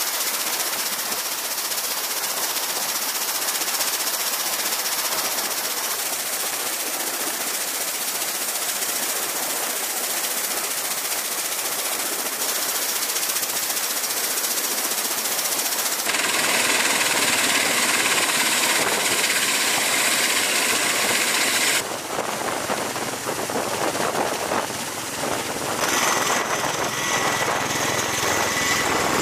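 Steady, loud aircraft engine noise with a hissing character. About halfway through it grows fuller and louder. Near the end a CMV-22B Osprey's turboshaft engines whine as its proprotors turn.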